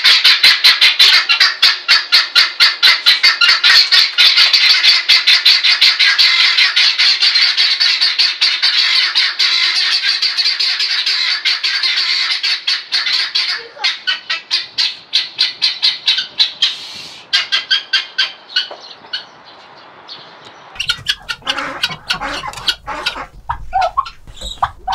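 Helmeted guinea fowl giving a fast run of harsh, repeated notes, a rattling chatter that is loudest in the first half and fades and thins through the middle. From about 21 s on there are only quieter, scattered softer calls.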